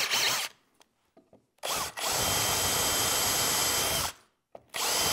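Cordless drill spinning a countersink bit to chamfer a hole in the edge of plywood, in three separate runs: a short one ending just after the start, a longer one of about two and a half seconds, and another starting near the end. Each run begins with a quick spin-up.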